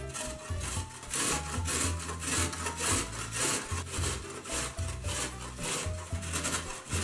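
Carrot being grated on a stainless steel box grater: repeated rasping strokes, a few each second, starting about a second in.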